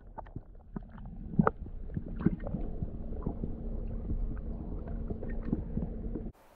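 Muffled underwater sound picked up by a camera in a waterproof housing: a low rumble with irregular clicks and knocks and a steady low hum. It cuts off abruptly near the end.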